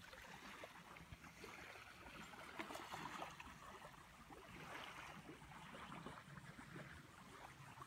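Faint shoreline ambience: small waves lapping at the edge of calm water, with light, irregular crackles.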